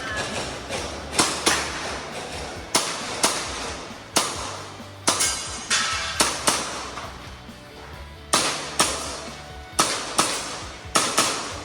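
Airsoft pistol shots fired mostly in quick pairs, about fifteen shots in all, each pair a few tenths of a second apart with a second or so between pairs: two shots per target on an IPSC Action Air stage.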